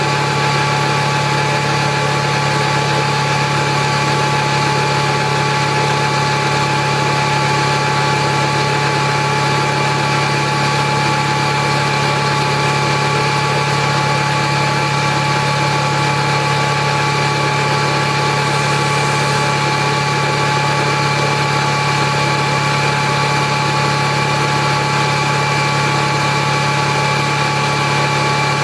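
Atlas Copco GX7FF 10 hp rotary screw air compressor running steadily: a constant low hum with a fixed high whine over it.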